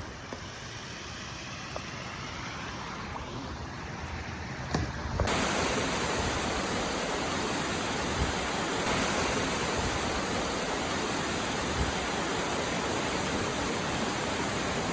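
Rushing floodwater: a steady roar of water noise that jumps louder and brighter about five seconds in, then holds steady.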